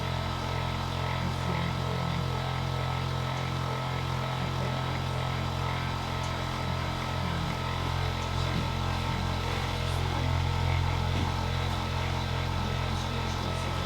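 Handheld electric massager running steadily on a strong setting, a low even motor hum with no break.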